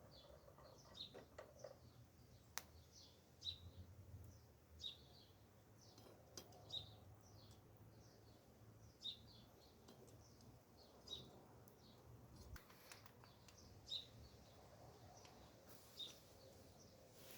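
Near silence with faint, short bird chirps repeating every second or two over a low background hum.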